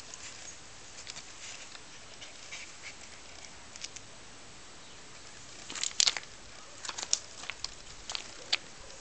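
Dogs playing on a concrete path: scattered clicks and scrapes of claws and paws on the concrete as a puppy squirms and rolls on its back. The loudest flurry comes about six seconds in, with a few sharper clicks after it.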